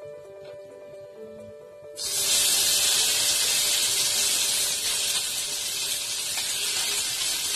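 Wet blended masala paste dropped into hot oil in a frying pan, starting a sudden loud sizzle about two seconds in that then carries on steadily. Soft background music plays throughout.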